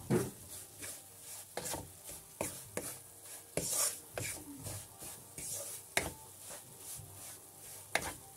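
Wooden spoon scraping and stirring semolina as it roasts in butter in a non-stick pan, with irregular scrapes about one or two a second.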